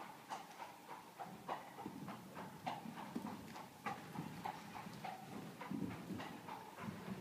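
Hoofbeats of a horse cantering and jumping a show-jumping course on arena footing: a quick, uneven run of hoof strikes with some heavier thuds.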